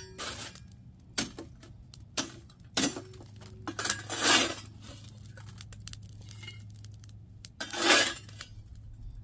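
Chunks of lump charcoal clinking and scraping against a metal fire shovel and a cast-iron Dutch oven as they are set on the oven, in several separate sharp clinks and two longer rattling scrapes about four and eight seconds in.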